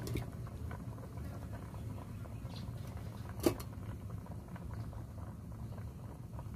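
Chicken hamonado sauce simmering in a pot, with a faint steady patter of small bubbles. A single sharp click comes about three and a half seconds in.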